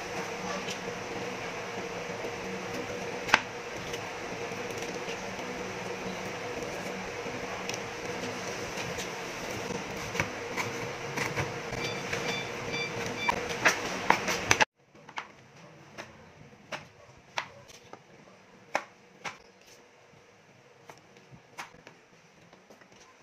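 Knife tapping against a plastic cutting board while a red bell pepper is chopped, a few taps at a time, over a steady room hum. About two-thirds of the way in the hum cuts off abruptly, leaving quieter knife taps about once a second.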